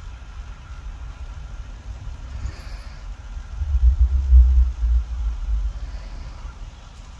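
Low, uneven rumble with no clear pitch, loudest from about three and a half to six seconds in.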